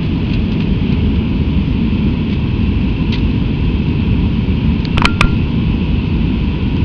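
Steady loud rumble of airliner engine and air noise in an Airbus A319 after takeoff. A few sharp clicks or rattles come about five seconds in.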